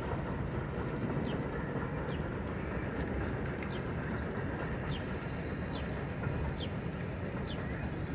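New York City Subway train running, a steady low rumble, with short high chirps repeating about once a second.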